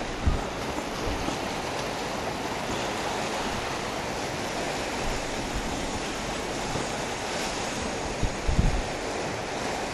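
Steady rushing noise of wind on the microphone, with brief low thumps of buffeting just after the start and again about eight and a half seconds in.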